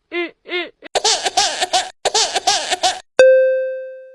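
Meme sound effects: two short pitched vocal calls, then about two seconds of high-pitched giggling laughter, then a single bell-like ding about three seconds in that rings out and fades.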